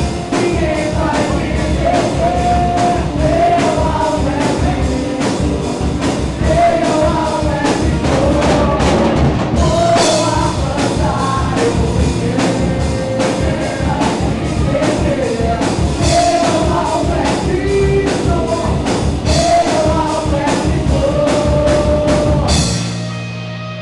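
Live amplified youth worship band: several singers on microphones over a drum kit and electric guitar, playing an upbeat rock-style song with a steady beat. Near the end the band stops together and the last chord rings away.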